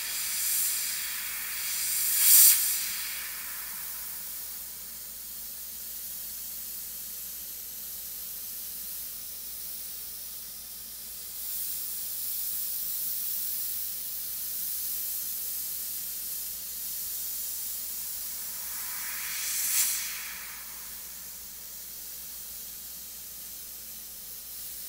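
Iwata HP-CS Eclipse gravity-feed airbrush spraying paint: a steady hiss of air from the nozzle, with two louder bursts, one about two seconds in and another about five seconds before the end.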